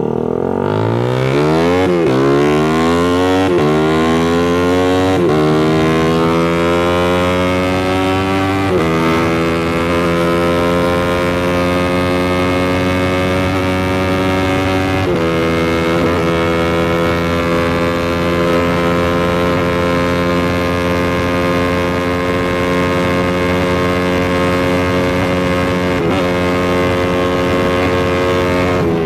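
Loud motorcycle engine, ported and fitted with a performance camshaft, accelerating hard: its pitch climbs and drops back at several gear changes in the first nine seconds. It then holds a steady note at speed, dipping briefly twice. Very noisy.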